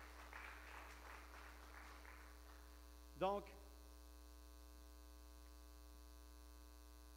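Faint applause for about two seconds, then a steady electrical mains hum with a buzz from the sound system. A single short vocal sound from a man breaks in about three seconds in.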